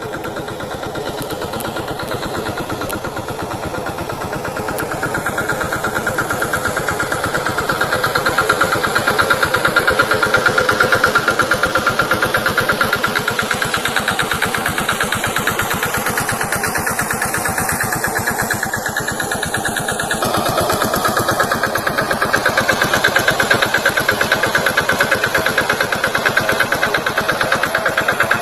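VST Shakti tractor's diesel engine running with a steady rapid firing beat, growing louder about six to ten seconds in and staying up.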